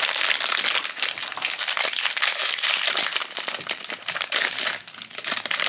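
Foil blind-box bag crinkling and crackling as hands work it open.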